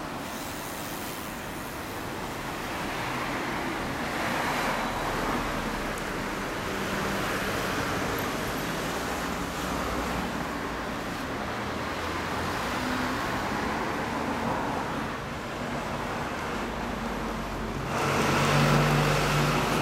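Motor vehicle engine and road noise, steady with faint low engine tones, swelling louder near the end.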